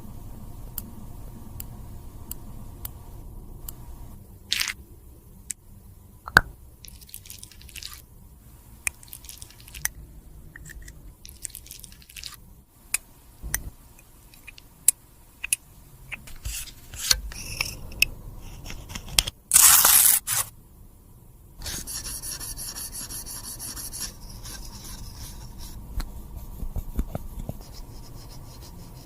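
Close-up sounds of cosmetics being handled and worked on: scattered sharp clicks and taps with scraping and rubbing. About two-thirds in there is a loud, brief hissing burst, followed by a couple of seconds of steady noise.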